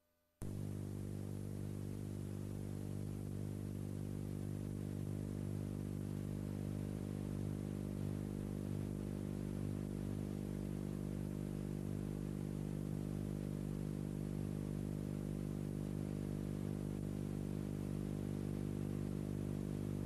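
Steady engine drone of an aircraft heard from inside the cabin, a set of low hums with a hiss above. It starts abruptly about half a second in and holds level throughout.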